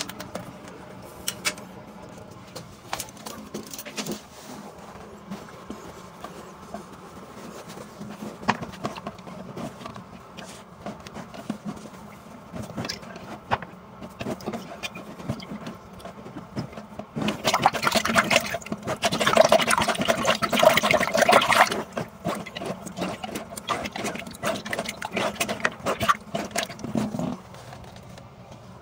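A flexible plastic tube being pushed and worked in a clogged toilet's drain, with scattered knocks and water sloshing in the bowl. About 17 s in a loud stretch of rushing, splashing water lasts some five seconds, then dies down.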